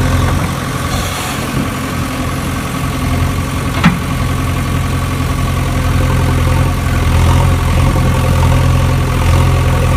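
A steady engine idling hum, with one sharp click about four seconds in.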